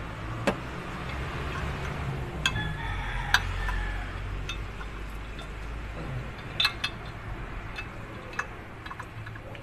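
Metal truck water separator (diesel fuel filter housing) being handled and turned over by hand, giving scattered clicks and light metal clinks, a few sharper ones, over a steady low rumble.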